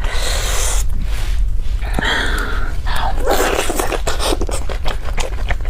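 Close-up eating sounds: sucking and slurping sauced meat off a pork leg bone, with chewing, lip smacks and sharp breathy intakes.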